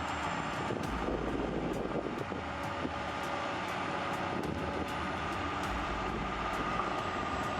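Heavy earthmoving machinery's diesel engine running steadily under load, with a faint steady whine over the engine noise.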